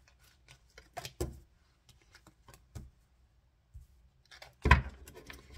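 Tarot cards being shuffled and handled, with soft scattered clicks and flicks of card against card, then a single loud thump about three-quarters of the way through as cards are laid down on the wooden table.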